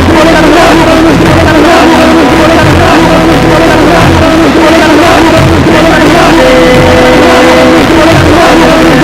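Loud live music from a duo's set: sustained droning tones over a low, pulsing beat.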